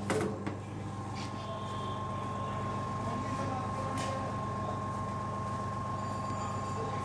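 Vacuum pump of a digital vacuum leak tester running steadily while it pulls vacuum on the test chamber: a low, even hum with a thin steady whine over it.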